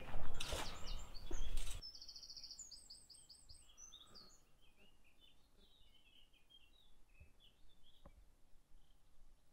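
Loud scuffing noise for the first two seconds, which then stops. Small birds chirp and call after it, with a quick run of high repeated notes about two seconds in and scattered chirps after, plus a couple of faint knocks near the end.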